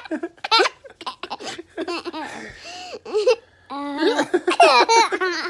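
A young child laughing while being tickled, giggling in short bursts. The laughter is softer in the middle and loudest after a brief pause near the end.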